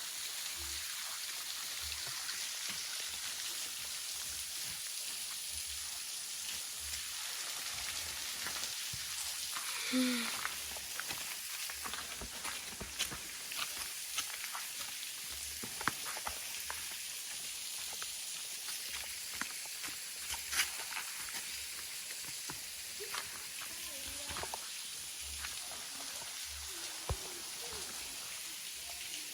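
Butuase waterfall's thin dry-season flow falling and spattering on rock: a steady hiss with scattered drips and splashes.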